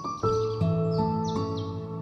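Gentle instrumental background music with held notes that change about every half second. Short high falling chirps sound over it in the first second and a half.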